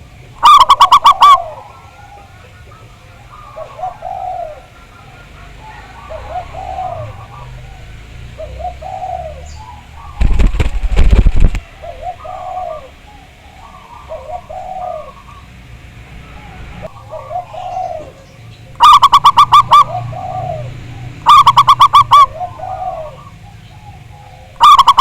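Several zebra doves (perkutut) cooing: a steady string of softer coos about every second and a half, with four very loud, close, fast-rolling coos cutting in at the start, twice in the second half and at the end. A loud noisy burst lasting about a second breaks in near the middle.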